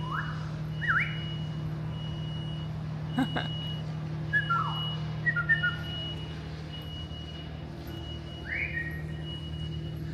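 Whistled calls traded between a parrot and a man mimicking it. There are short rising whistles about a second in, a falling whistle and a few short level ones in the middle, and another rising whistle near the end.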